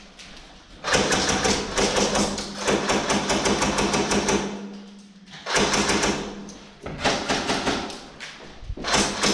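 Airsoft rifles firing on full auto: long bursts of rapid clicking, broken by a short pause around the middle and a brief burst near the end.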